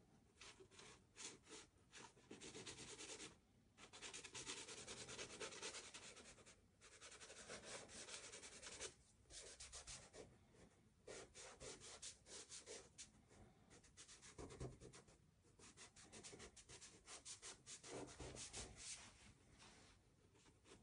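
A soft pastel stick scratching and rubbing across coloured paper in quick, faint strokes, in runs of a second or more with short pauses between.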